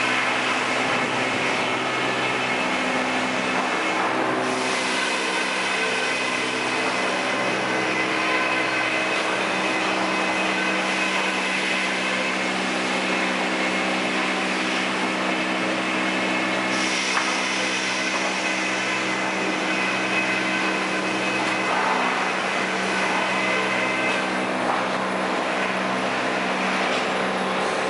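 Sawmill machinery running steadily: a constant mechanical drone with several steady hum tones.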